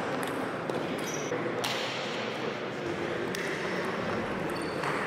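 Table tennis rally: the celluloid ball being struck with rubber-faced bats and bouncing on the table, heard as sharp clicks at irregular spacing over a steady background noise.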